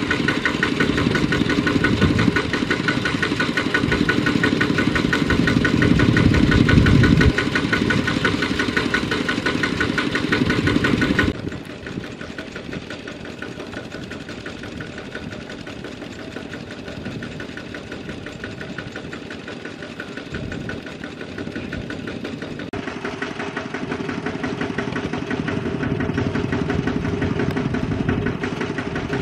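Single-cylinder diesel engine of a two-wheel walking tractor running hard with a rapid, steady knock as it labours to pull a loaded rice trailer out of deep mud. The sound drops abruptly about eleven seconds in, then slowly grows louder again.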